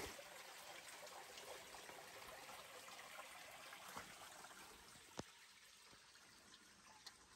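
Near silence: a faint trickle of spring water that fades after about five seconds, with a few soft clicks.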